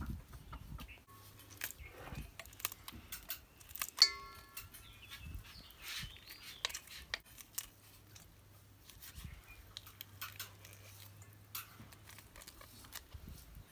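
Knife cutting peeled lemon against the thumb over a stainless steel bowl: soft irregular cutting clicks, with one clear ringing clink of the blade on the steel bowl about four seconds in.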